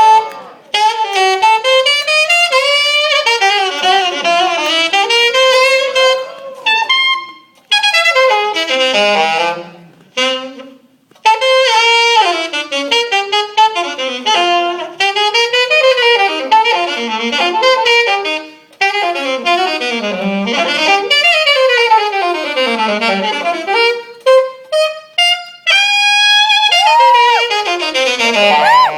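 Jazz saxophone solo with fast improvised runs sweeping up and down in pitch, broken by a few short pauses, and closing on a long held note that bends near the end.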